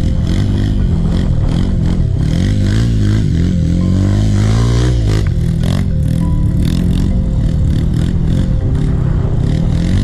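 Trail motorcycle engine running under way, its revs rising and falling as the rider works the throttle, with the rattle and clatter of the bike over rough ground.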